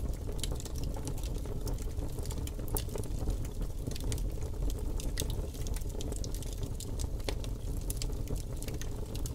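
Wood campfire crackling, with frequent sharp, irregular pops over a steady low rumble.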